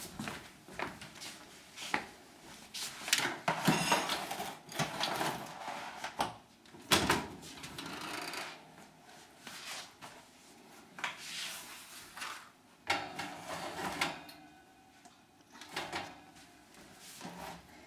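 Irregular knocks, clatters and rustles of kitchen handling, ending with a foil loaf pan being set onto a metal oven rack.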